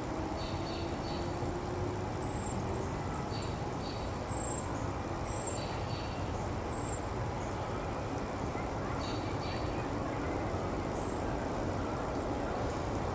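Steady low outdoor background rumble with scattered short, high chirps every second or so.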